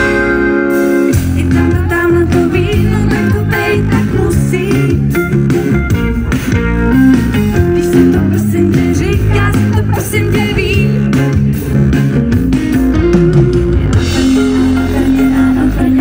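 Live band music, with guitar and bass guitar prominent over a steady beat.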